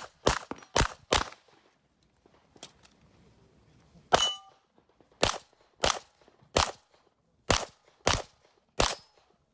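Handgun fired in quick strings: four fast shots, a pause of about three seconds, then a shot followed by a brief metallic ring, as a steel target is hit, and six more shots at an even pace of about one and a half a second.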